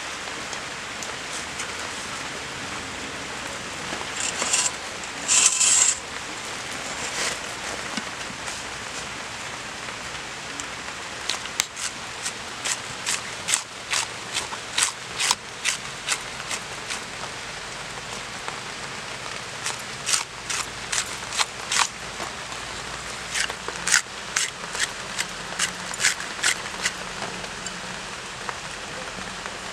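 Arum flower stalks being sliced into thin rings on a boti, a curved blade fixed upright on a wooden base: from about twelve seconds in, a run of short crisp cuts, a few each second. A brief louder rustle about five seconds in.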